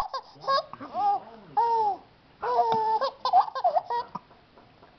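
Baby girl laughing in a run of short, high-pitched squealing giggles with brief pauses between them.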